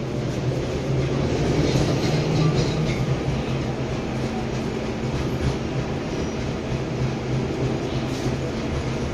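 A 71-619 (KTM-19) tram running along the track, heard from inside the passenger cabin: a steady rumble of wheels on rails with a low, even hum, a little louder between about one and three seconds in.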